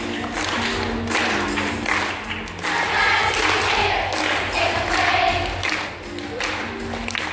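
Children's choir singing, with the melody changing from note to note.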